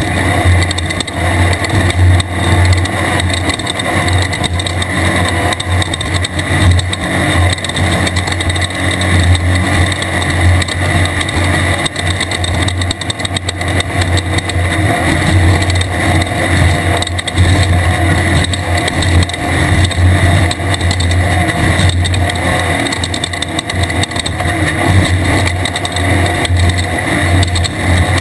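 Air-cooled Volkswagen engine of a 1600-class desert race car running hard at speed, a loud, constant drone that wavers quickly with throttle and terrain but never lets up.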